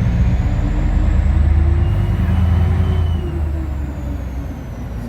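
Deep, steady rumble, easing a little after about three seconds, as a loaded log barge tilts and its cargo of logs slides off into the water.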